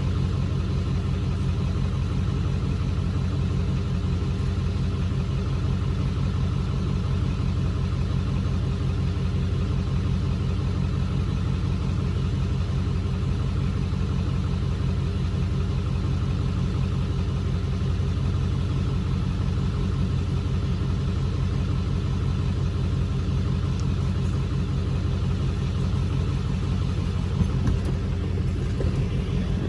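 Car engine idling steadily, a low even hum that holds at one speed throughout.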